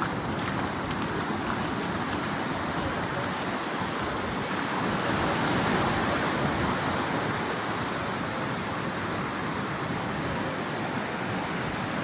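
Surf washing onto the beach, a steady rush of waves that swells for a few seconds around the middle.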